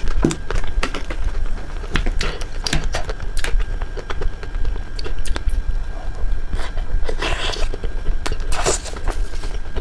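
Close-miked eating of a crisp ice cream bar: crunchy bites and chewing with scattered sharp mouth and spoon clicks, and two longer crunching stretches near the end. A steady low hum runs underneath.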